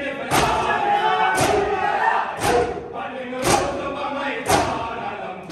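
Matam: a crowd of men striking their bare chests with their hands in unison, five loud beats about once a second, keeping time with a chanted noha sung by many voices between the beats.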